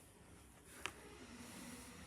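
Near silence: a faint steady hum with one short click a little under a second in.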